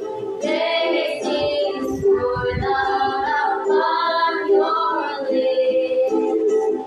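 Three girls singing a hymn together in unison, accompanied by a strummed ukulele.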